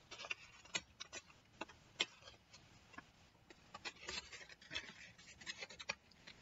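Paper plate being folded and handled: faint, irregular crackling rustles and small creasing clicks as the cut points are bent upward, busier in the second half.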